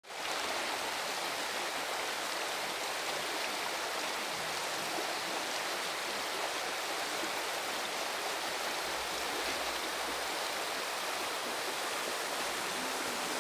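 Muddy floodwater rushing down a stone-lined ravine channel swollen by storm rain, a steady, unbroken rush of turbulent water.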